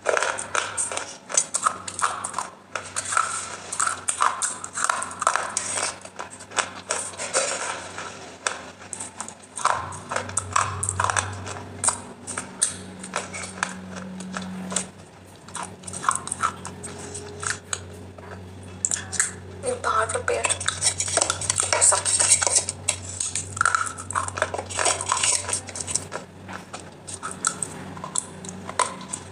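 Fingers working thick, wet clay paste on a steel plate: many small clinks and scrapes against the metal, with sticky, squelching eating sounds.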